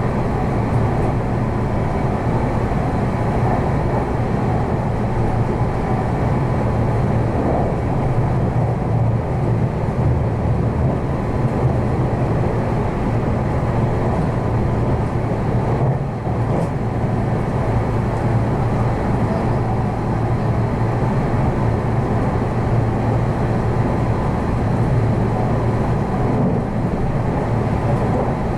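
Meitetsu electric train running, heard from inside the carriage: a steady rumble of wheels on rail and running gear.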